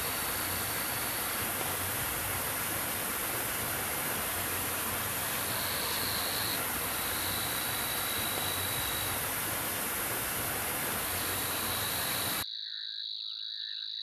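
Shallow stream running over rock, a steady rushing hiss, with an insect's thin steady high note that comes and goes over it. Near the end the water sound cuts off suddenly and the insect note carries on alone.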